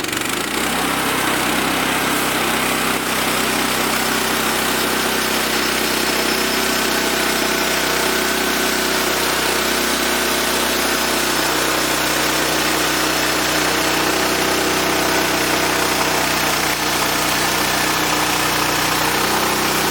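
Bandsaw sawmill's engine running steadily at a constant pitch, with a loud, even mechanical hiss over it.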